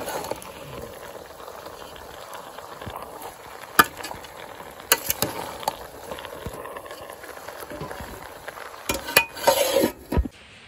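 Pork pieces sizzling in an aluminium pot while a metal spoon stirs them, now and then clinking sharply against the pot's side. Near the end comes a louder burst of metal clatter and rubbing.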